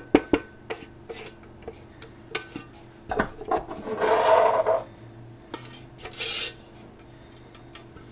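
Silicone spatula knocking and scraping against a stainless-steel Thermomix mixing bowl as freshly ground onion powder is scraped out. A few light knocks come at the start, then a longer scrape of about a second and a half around the middle, and a short hiss a couple of seconds later.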